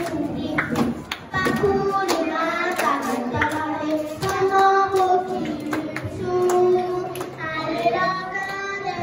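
Group of children singing a song together, holding long notes, with hand claps keeping time about twice a second.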